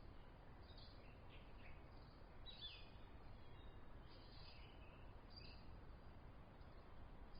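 Faint outdoor nature ambience: a low, steady background noise with scattered, faint, high bird chirps, mostly in the middle stretch.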